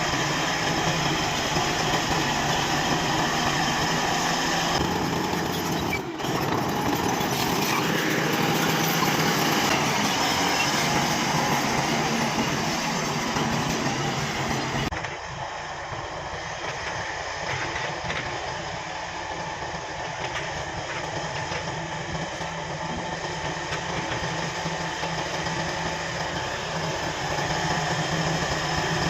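Komatsu D155 bulldozer's diesel engine running steadily with mechanical clatter. The sound changes abruptly about six seconds in and again about fifteen seconds in, and is somewhat quieter after the second change.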